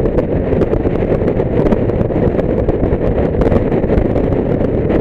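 Steady wind rush buffeting the microphone on a moving motorcycle, with engine and road noise beneath it and light crackles throughout.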